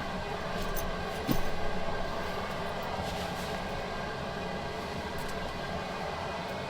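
Truck camper's propane heater running, its blower giving a steady hum, with a few light clicks and one knock about a second in.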